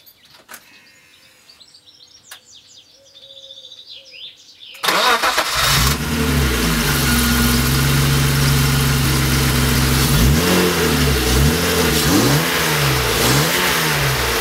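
BMW E36 325i's M50B25 straight-six starting on its newly fitted starter motor: about five seconds in it cranks briefly and catches, then runs steadily, with several quick revs up and down in the last few seconds. Birds chirp before the start.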